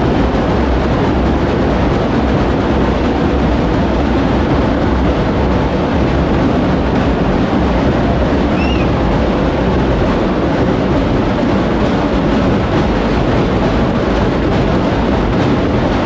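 Dense, steady hubbub of a large crowd packed into a street, many voices blending into one continuous noise, with a brief high chirp about halfway through.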